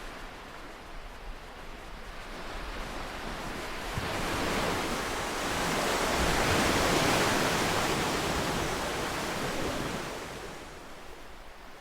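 Ocean waves: one wave swells up over a few seconds, breaks in a broad rush of surf about halfway through, and washes back down to a soft hiss near the end.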